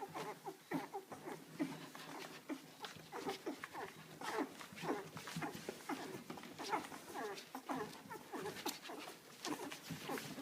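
Several newborn Canaan dog puppies squeaking and whimpering in quick, short cries as they jostle to nurse.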